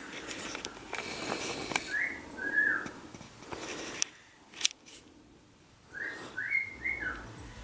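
A bird chirping in short whistled notes: a pair about two seconds in and a quick run of three near the end. Rustling and light knocks sound in between.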